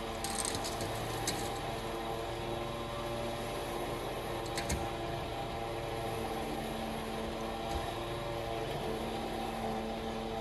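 A motor running steadily at an even speed, with a few light clicks about half a second in and again about halfway.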